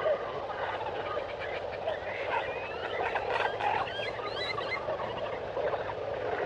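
Tropical forest wildlife chorus: many overlapping small chirps and short whistled glides over a steady hiss of calling animals.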